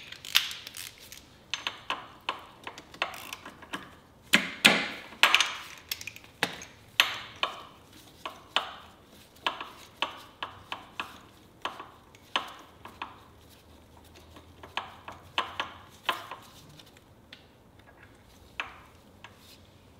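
Hand tools and small metal parts clinking and knocking, one sharp clink every half second to a second, thinning out near the end.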